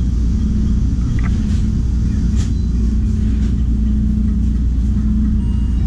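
Steady low rumble of street traffic with a droning hum, heard through a shop window. There is a light click about two and a half seconds in.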